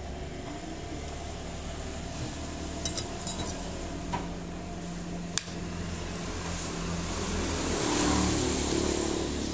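Steady low hum of road traffic, swelling as a vehicle goes by about eight seconds in. A few sharp clinks of metal cutlery against a plate and glass in the first half.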